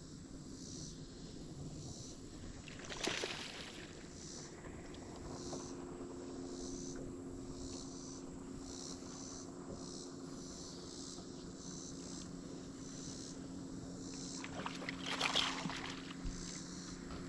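Electric trolling motor on a bass boat humming steadily, with insects chirring in a steady rhythm. There are two short swishes, one about three seconds in and a louder one near the end.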